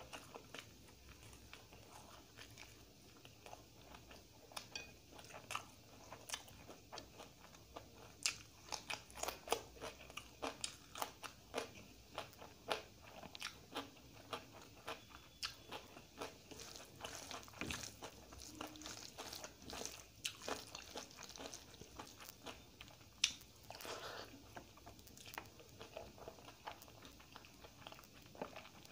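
Close-miked chewing of a handful of rice and dal, with many irregular crunchy clicks and wet mouth sounds, busiest through the middle stretch.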